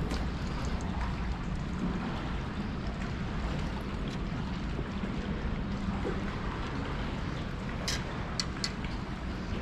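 Wind on the microphone, a steady low rumble, with a few short sharp clicks near the end.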